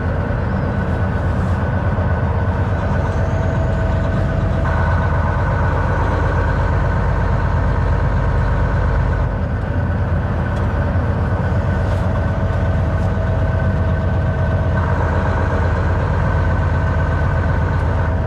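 Semi truck cab noise while driving: a steady low engine drone with road noise and a constant hum over it.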